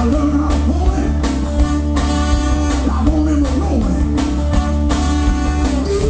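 Soul band playing live: drums keeping a steady beat under bass and guitar, with a lead line sliding up and down in pitch.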